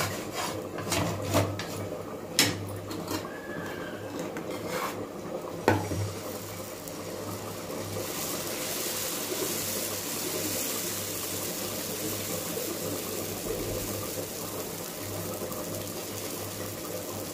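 Ragi dosa batter sizzling steadily on a hot pan, the hiss building up after a few sharp metal taps and clicks in the first several seconds as the batter goes on.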